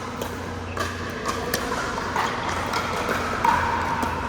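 Pickleball play: paddles hitting the hard plastic ball, several sharp pops at irregular intervals, over a steady low hum.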